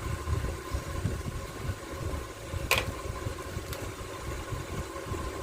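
Low, uneven mechanical rumble with a faint steady whine, and one sharp click about halfway through.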